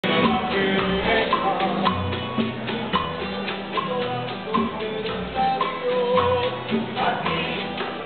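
Small live Cuban band playing: acoustic guitars strummed in a steady rhythm with bass notes and a voice singing a melody.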